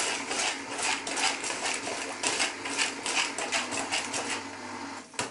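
Hand whisk beating sponge-cake batter in a plastic bowl, a rhythmic scraping and tapping at about four strokes a second. The strokes stop about four and a half seconds in, and there is a single sharp knock near the end.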